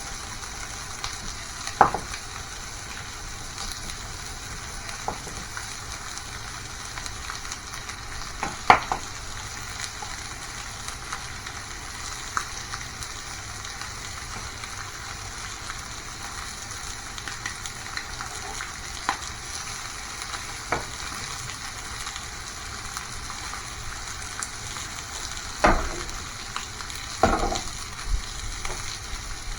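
Food sizzling steadily in a frying pan, with a few sharp knocks and scrapes, the loudest about a third of the way in and two more near the end.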